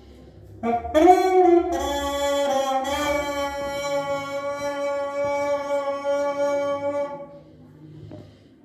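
Homemade PET-bottle horn playing a slow melody: a few notes step up in the first seconds, then one long held note fades out near the end. The tone is buzzy, full of overtones.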